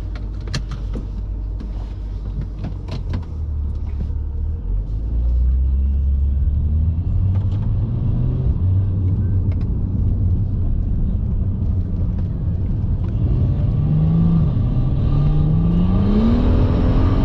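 BMW 135i's N55 turbocharged inline-six and its road rumble heard inside the cabin as the car pulls onto the road and accelerates. Near the end the revs climb, drop at an upshift and climb again.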